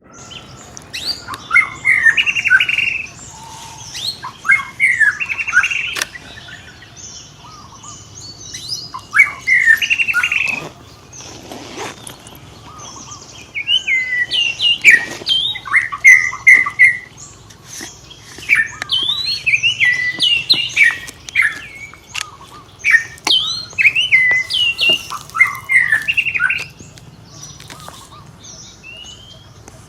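High-pitched chirping and squealing animal calls, coming in bursts of a few seconds with short lulls between them.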